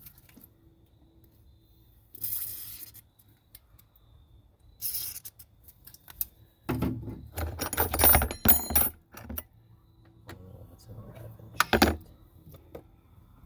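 Metal tools or parts clinking and jangling in separate bursts, loudest in a busy stretch about halfway through and again briefly near the end, with two short hisses earlier on.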